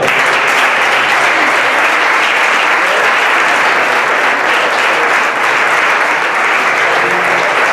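A roomful of people applauding, a dense, steady clapping that starts suddenly and keeps on without letting up.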